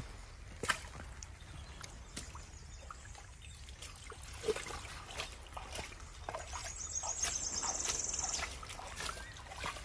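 Shallow muddy water trickling and splashing in small drips as hands reach into it and lift an object out. A high rapid trill sounds for about two seconds past the middle.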